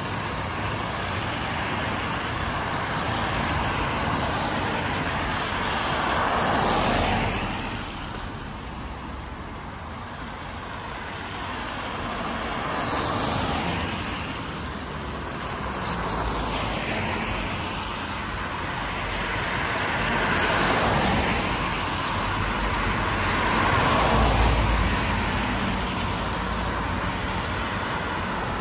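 Cars passing one after another on a wet road, the hiss of their tyres on the water swelling and fading every few seconds.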